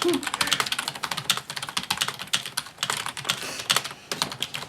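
Fast typing on a CM Storm membrane gaming keyboard: a dense, uneven patter of key strokes, many a second.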